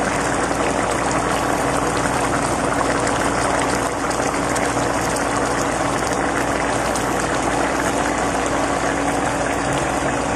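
Coconut-milk sauce of pork and squash boiling in a wide stainless pan, a steady bubbling, with a low steady hum underneath.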